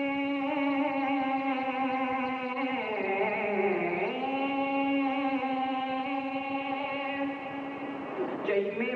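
A male voice singing a naat, holding long notes with a slight waver. It slides down in pitch about three seconds in and again near the end.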